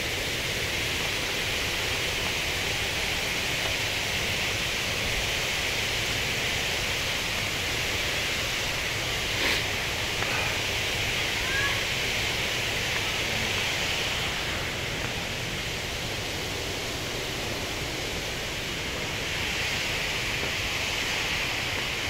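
Steady rush of water from a waterfall cascade, with a couple of faint short chirps about halfway through.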